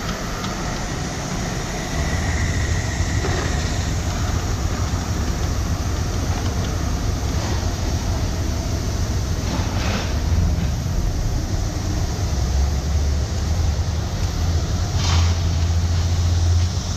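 Steady low rumble in a large hall, stepping up about two seconds in, with two short hisses about ten and fifteen seconds in, likely steam escaping from a small live-steam model locomotive being prepared.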